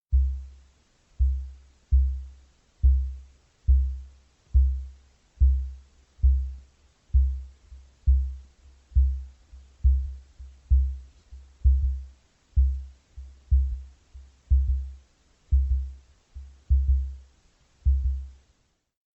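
Deep booming pulses, about one a second with some in quick pairs, each starting sharply and fading away. This is a designed velociraptor booming call built from recordings of large birds.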